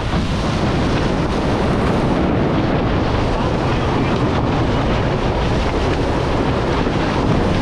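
Loud, steady wind buffeting the onboard microphone, mixed with water rushing past the hulls of an Extreme 40 racing catamaran sailing at speed.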